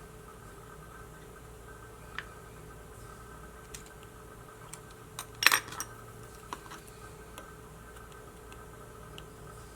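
Small hard parts and a tool clicking and tapping against an action camera's casing during disassembly: scattered single clicks, with a quick cluster of louder clatters about five and a half seconds in, over a steady electrical hum.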